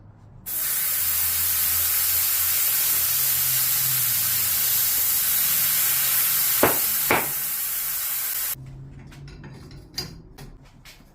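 Compressed air hissing loudly and steadily for about eight seconds, starting and stopping abruptly, with two sharp ticks shortly before it cuts off.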